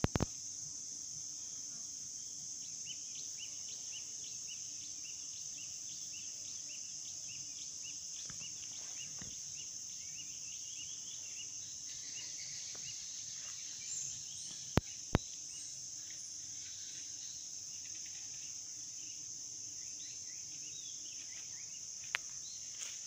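Steady high-pitched drone of an insect chorus in forest. Rapid short chirps sound over it for the first half, and a few sharp clicks come past the middle and near the end.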